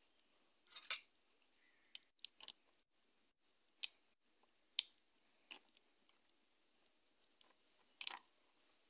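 Faint, scattered light clicks and taps of a spoon against a small glass bowl of chilli-garlic sauce, about seven in all with gaps between them.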